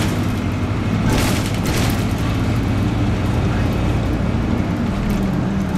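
Interior sound of a 1999 NABI 40-LFW transit bus under way: its Detroit Diesel Series 50 engine running with a steady low drone over road noise. There is a burst of hiss about a second in, and the engine note shifts higher near the end.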